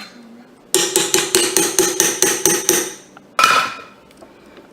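A utensil knocking repeatedly against the rim of a metal stand-mixer bowl, about four ringing taps a second for two seconds, then one harder knock: sour cream being knocked off into the bowl.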